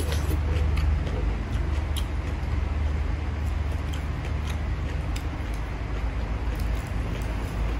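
Eating instant noodles from a bowl: scattered small clicks and mouth sounds over a steady low rumble.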